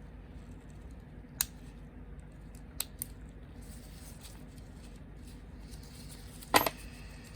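Sharp plastic clicks of snap-fit model kit parts being handled and pulled apart: single clicks about a second and a half in and near three seconds, and a louder cluster of snaps about six and a half seconds in, over a low steady hum.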